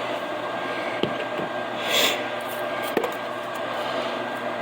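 Seasoning containers being handled: a few light clicks and a brief shaking rustle about two seconds in, over a steady background noise.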